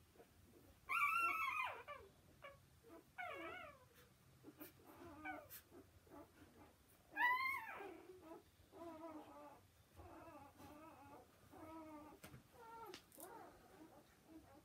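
Newborn Gordon Setter puppies squealing and whining: a string of high, wavering, mewing cries. The loudest come about a second in and again about seven seconds in, with shorter, quieter whimpers between and after.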